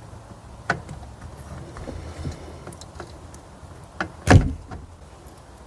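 A few clicks and knocks as a melted headlight wire and its terminal are worked loose by hand behind the headlight housing. The loudest knock comes about four seconds in.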